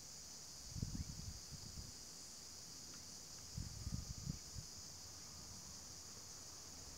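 Steady high-pitched insect chorus, with two short spells of low rumbling: about a second in, and again from about three and a half seconds.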